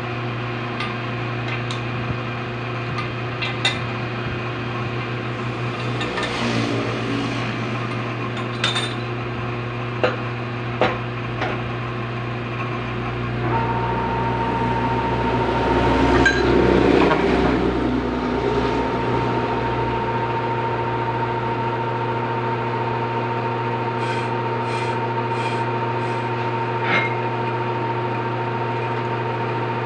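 Metal lathe running with a car flywheel spinning in its chuck for refacing: a steady motor hum with scattered metallic clicks in the first half. About halfway through a steady high whine sets in and holds as the cutting tool works across the flywheel face.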